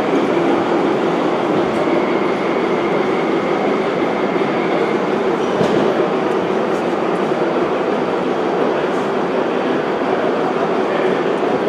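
Gauge 1 model train running on its layout track: a steady rolling rumble of metal wheels on rail, with one short click about halfway through.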